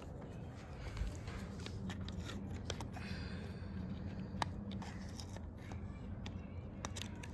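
Scattered light clicks and rustles of handling, as the animatronic's power adapter and wires are plugged in, over a faint low hum.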